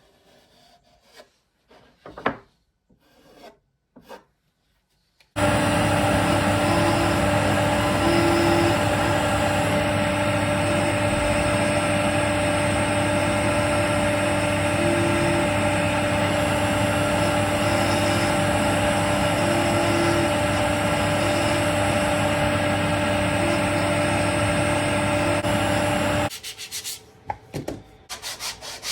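A few rubs and scrapes of oak pieces being handled. About five seconds in, an electric power tool starts and runs steadily with a fixed hum for about twenty seconds, then stops suddenly. Quick back-and-forth rubbing strokes on wood follow near the end.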